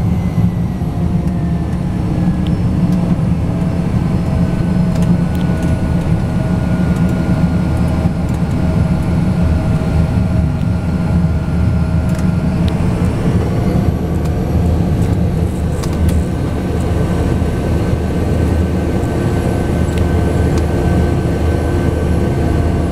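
Cessna C-208 Caravan's single Pratt & Whitney PT6A turboprop engine and propeller running at low taxi power, heard from inside the cabin as a loud steady drone with a faint higher whine over it.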